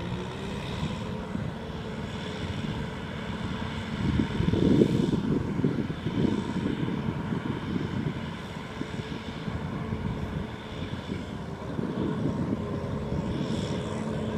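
Kubota M6040 tractor's four-cylinder diesel engine running steadily under load, hauling a loaded rice trailer through mud. It gets louder for a second or so about four seconds in.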